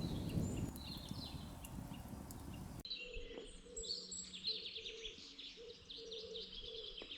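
A low rumble dies away over the first three seconds; then, after an abrupt change, songbirds sing in a leafless early-spring forest with quick high chirps and trills.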